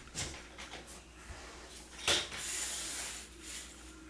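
Fibreglass mesh drywall tape being handled and applied over a ceiling repair: light ticks, then a sharp click about two seconds in followed by a brief hissing rub.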